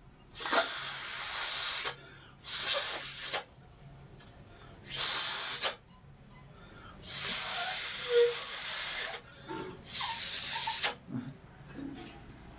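Air rushing through the neck of a rubber balloon in five hissing bursts, each lasting about a second, the fourth about two seconds; a glass marble sits inside the balloon. Small rubbery clicks near the end.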